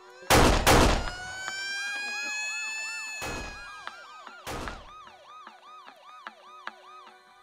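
Police siren wailing, then switching to a rapid yelp about three cycles a second. Loud sudden noise hits cut across it twice just after the start and again at about three and four and a half seconds.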